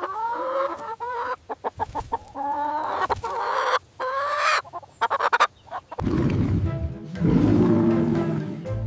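Chicken clucking and cackling in a run of repeated calls for about the first six seconds. Then a lower, rougher sound takes over.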